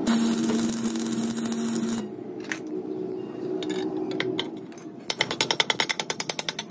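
Stick (arc) welding on a steel oil-filter cup: a dense crackle with a steady hum for about two seconds, then it stops. Near the end comes a fast run of sharp metal-on-metal strikes, about a dozen a second, as a hand tool works the fresh weld.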